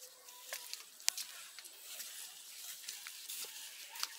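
Rustling of a head-carried bundle of freshly cut Napier grass, with footsteps through grass: scattered sharp crackles over a steady high hiss.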